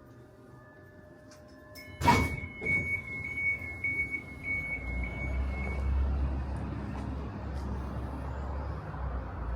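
Tram doors working: a sudden loud knock about two seconds in, then a pulsing high door-signal beep for about four seconds. A low rumble builds as the tram's motors and wheels get going.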